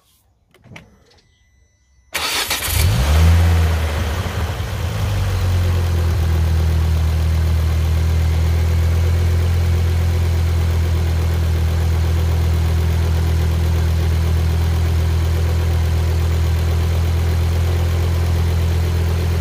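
Ford Focus ST225's 2.5-litre turbocharged five-cylinder engine starting about two seconds in, flaring up briefly as it catches, then settling into a steady idle. It is the first start after a fresh oil and filter change.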